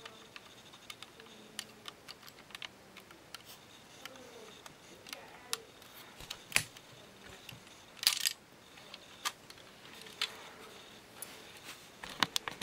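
Hard plastic Lego parts of a Lego revolver clicking and clacking as its firing mechanism is handled and worked, with a louder clatter about eight seconds in and a burst of clicks near the end.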